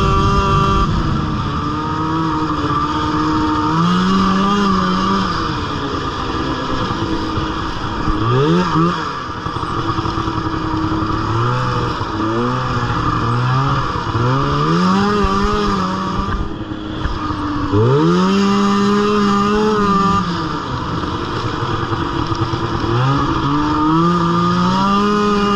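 Snowmobile engine running under way, its pitch climbing and levelling off again and again as the throttle is opened and eased, with a short let-off about two-thirds of the way through.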